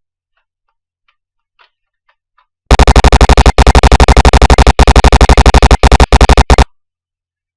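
Automatic-rifle gunfire, very loud and distorted: rapid shots at about a dozen a second, in a long burst broken by a few short pauses. It starts almost three seconds in, after a few faint clicks, and cuts off abruptly.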